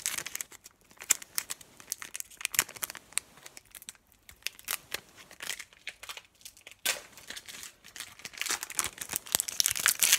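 Foil trading-card pack wrapper crinkling and being torn open by hand: scattered crackles, sparse and quieter in the middle, growing thicker and louder over the last few seconds.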